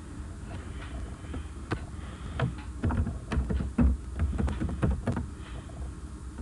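Computer keyboard and mouse clicking: irregular single clicks, some close together, over a low steady rumble.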